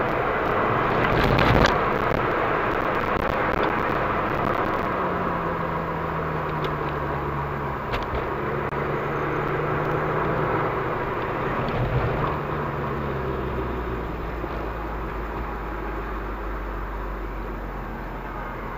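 In-cabin sound of a VW Golf V GTI's turbocharged four-cylinder running at low revs, with steady road and tyre noise as the car slows from about 60 to 25 km/h. There is a single knock about a second and a half in.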